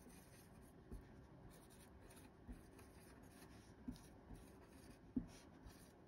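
Faint scratching of a felt-tip marker writing on paper, broken by four soft knocks.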